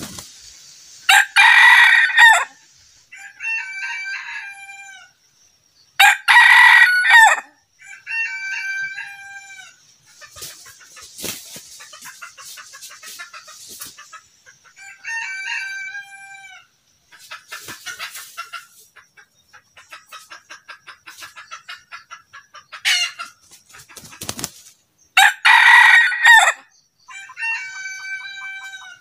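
Red junglefowl crowing: three loud crows, each a little over a second long, about a second in, about six seconds in and near the end. Several fainter crows and shorter calls come between them.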